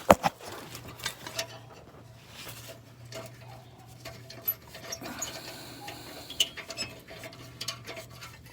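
Ratchet wrench clicking and metal tools clinking while a rusted 12 mm exhaust header bolt is worked loose, with one sharp metallic click right at the start.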